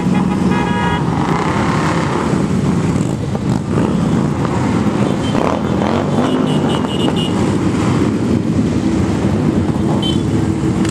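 A parade of cruiser motorcycles rumbling steadily past one after another, with an engine revving up about six seconds in.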